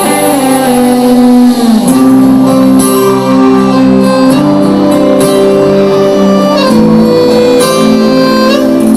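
Live sertanejo band playing an instrumental passage, led by an accordion holding long sustained notes that change every second or two.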